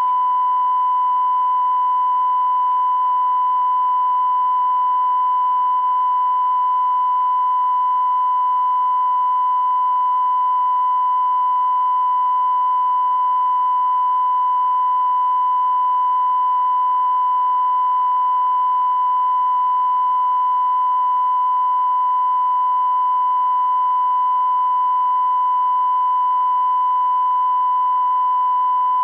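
Television test-transmission tone: a single steady pitch that runs on unbroken, over faint hiss.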